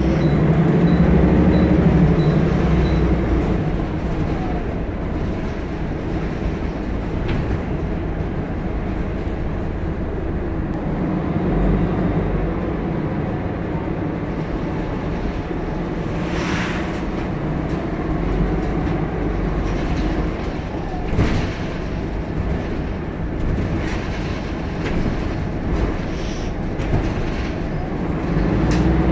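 Inside a moving Volvo single-decker bus: the diesel engine running steadily under way, with scattered clicks and rattles from the body and fittings and a brief hiss about halfway through.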